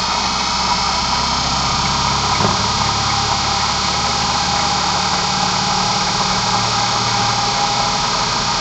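Induction motor with 'Slavyanka' combined windings running steadily at speed on a variable-frequency supply: a continuous electrical hum with a thin whine over it.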